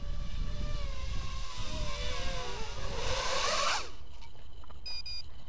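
SWH170 micro quadcopter's four 1306 3100 kV brushless motors with cut-down Gemfan triblade propellers whining, the pitch wavering as the throttle changes, growing loud, then dropping sharply and stopping just before 4 s as the quad sets down on the grass. Wind noise on the microphone underneath, and a brief high beep about a second after the motors stop.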